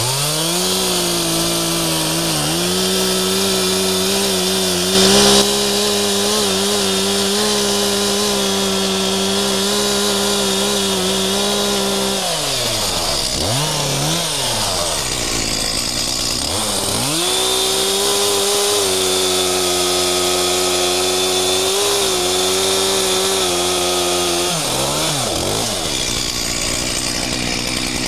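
A Stihl chainsaw cutting into a poplar trunk at full throttle to fell it, in two long held runs of about twelve and seven seconds. Between the runs and at the end it drops back to idle, with a short rev in between. A sharp knock sounds about five seconds in.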